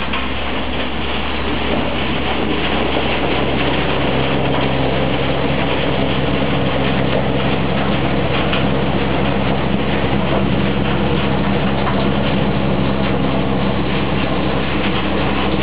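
Hay blower running, pushing second-cut hay through a telescopic distributor pipe: a steady loud rushing of air and hay over a low machine hum.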